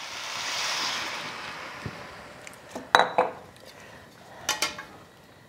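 Stir-fry sauce hitting a hot carbon steel wok: a sizzle that swells and fades over about two seconds. About three seconds in, a sharp ringing clink of the glass bowl being set down, then two lighter clinks near the end.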